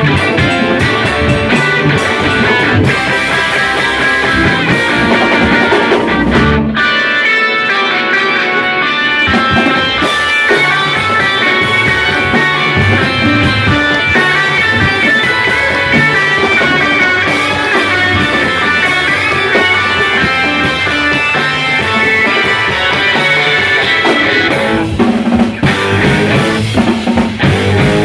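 A rock band playing live: electric guitars over bass guitar and drum kit. The low end drops away for a few seconds about seven seconds in, then the full band comes back in.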